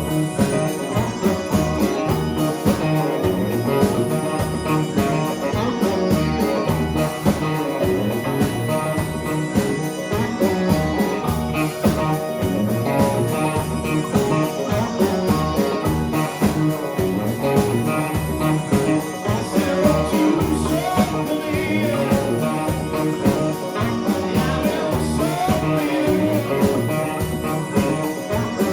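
A band playing a rock song with electric guitar, drums and singing.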